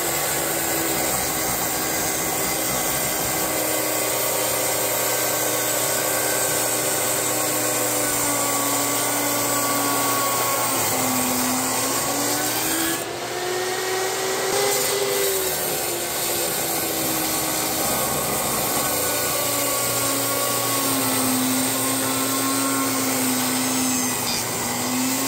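Skil SPT99-11 15-amp worm-drive table saw resawing solid oak at its full 3.5-inch blade height. The blade cuts steadily while the motor's hum sags in pitch under the load twice and picks back up.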